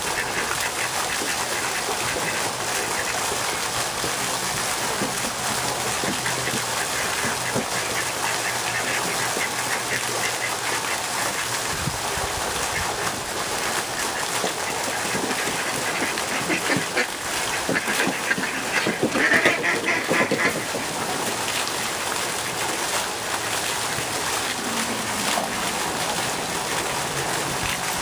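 Ducks quacking over the steady splashing of a pond fountain, with the loudest flurry of quacks about two-thirds of the way through.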